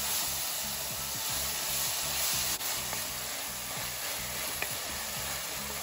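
Chopped vegetables in chilli, tomato and soy sauce sizzling steadily in hot oil in a kadai, stirred with a wooden spatula.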